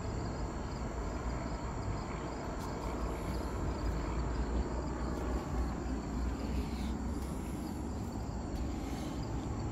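Summer outdoor ambience: insects trilling steadily at a high pitch over a low, steady rumble.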